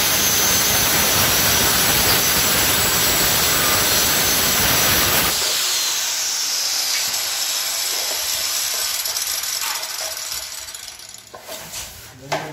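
A handheld electric circular cutter runs loud and steady as it cuts through an 8 mm laminate floor plank. About five seconds in it is switched off, and the blade winds down over several seconds, falling in pitch. A few light knocks follow near the end.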